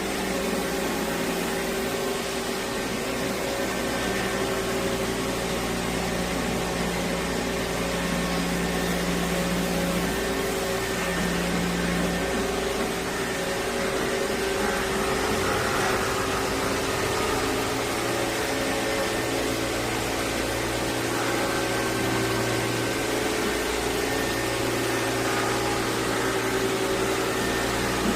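Electric vibrating floor scrubber running steadily: a motor hum with a few steady tones that shift now and then, over an even hiss of scrubbing.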